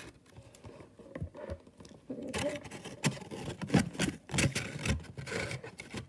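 Cardboard box being handled on a desk: irregular scraping and rubbing with light knocks, busier from about two seconds in.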